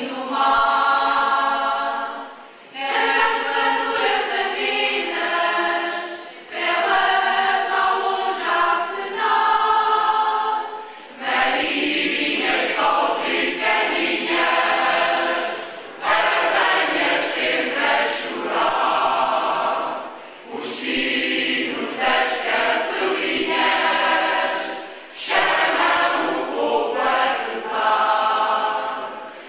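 Choir singing in phrases of a few seconds each, with short breaks between them and no bass instruments heard under the voices.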